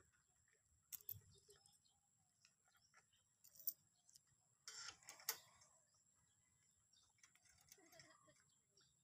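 Mostly quiet, with a few faint metal clicks and clinks from bolts and nuts being fitted to a stainless steel bag rack: one about a second in, one near four seconds, and two close together around five seconds in.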